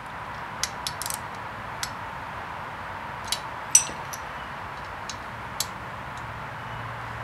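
Hand tools, a ratchet and an Allen key, clicking and clinking against the rocker box bolts on a Harley-Davidson Evolution engine's cylinder head: about nine short, irregular metallic clicks over a steady hiss. The loudest is a ringing clink a little before four seconds in.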